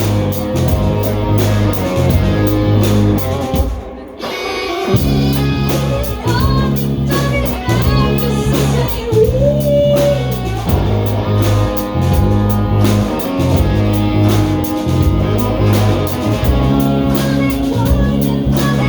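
A band playing live, with a pulsing bass line, drums and guitar. The band drops out briefly about four seconds in, then comes back in.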